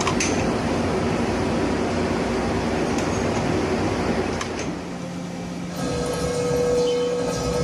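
Large metal-cutting machine tool running: dense, steady machining noise that drops away about five seconds in. It gives way to a steady humming tone with a lower hum beneath it.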